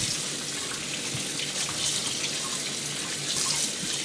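Tap water running steadily into a stainless steel sink and splashing over whole raw quail as they are rinsed by hand.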